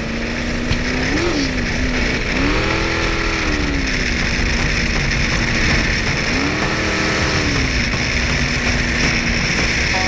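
Jetboat's LS1 V8 engine running at steady revs, with the rush of water and wind over the hull. The revs rise and fall back three times: briefly about a second in, then over about a second twice more.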